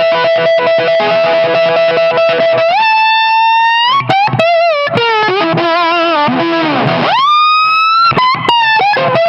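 Electric guitar played with a slide through a Soul Tramp Wraith amplifier. A long held note gives way to notes sliding upward with wide vibrato and easing back down, then a big swoop up to a high sustained note about seven seconds in, which slides down again at the end.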